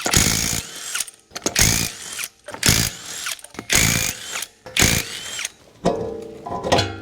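Impact wrench run in short bursts, about six of them roughly a second apart.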